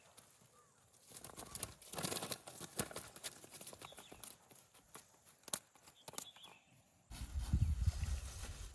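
Irregular splashes and knocks in shallow river water, then a sudden steady low rumble from about seven seconds in.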